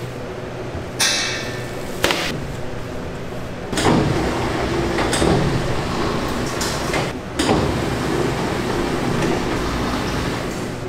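Bakery workshop: a steady machine hum with a string of knocks and clatters from the equipment, about six in all. The one about a second in is a ringing metal clang.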